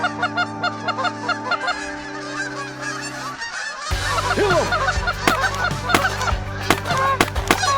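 A flock of geese honking, many short repeated honks overlapping, with a brief gap a little past halfway.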